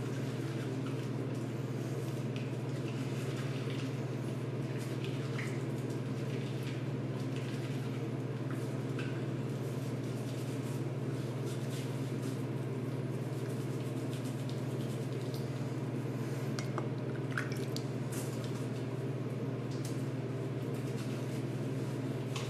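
Shower water running steadily in a small stall, with light drips and splashes as hands rub wet skin, over a constant low hum.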